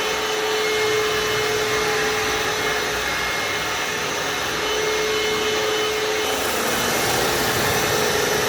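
Vmai V8 Pro cordless wet-dry vacuum cleaner running steadily, its motor giving a constant whine over the rush of suction.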